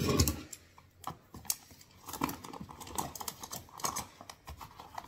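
Small hand tools, little screwdrivers among them, being handled and shuffled in a tool bag: a louder bump of handling at the start, then a run of irregular light clicks and clacks.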